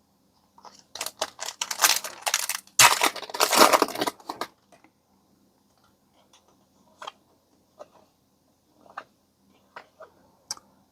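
Foil trading-card booster pack wrapper being torn open and crinkled for about four seconds, followed by a few soft scattered clicks as the cards are handled.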